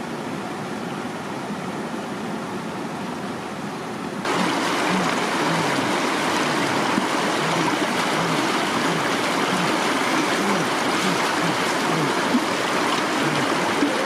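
Stream water running over rocks, fairly gentle at first. About four seconds in it becomes a louder, steady rush of water pouring through shallow rapids between boulders.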